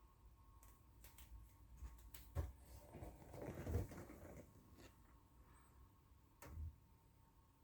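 Faint unboxing handling noise: rustling of packaging for a second or two, with a few sharp clicks and knocks.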